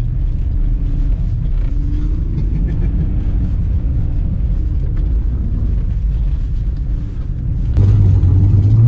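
BMW E53 X5's engine heard from inside the cabin while sliding on snow: a steady low rumble with a faint note that rises and falls gently. About eight seconds in it cuts to a louder, steadier engine note from the E46 325i's straight-six.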